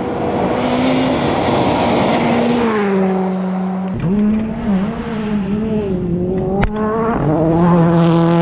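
Gravel rally car engines at high revs under hard throttle, the engine note stepping and wavering in pitch with gear changes and throttle. About four seconds in, the sound switches abruptly to another car's engine. A single sharp crack comes a little over six seconds in.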